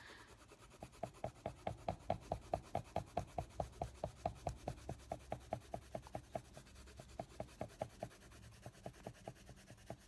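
Prismacolor coloured pencil rubbing back and forth on a colouring-book page in quick, even shading strokes, about six a second, pressed hard. The strokes pause briefly twice in the second half.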